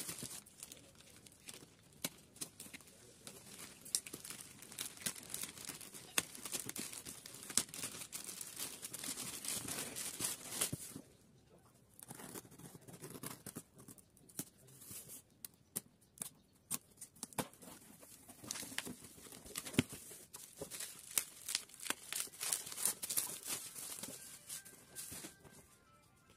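A parcel being unpacked by hand: a plastic courier bag crinkling and tearing open, then packing tape ripped from a cardboard box and paper handled. Irregular crackles, rips and sharp clicks, with a quieter spell about halfway through.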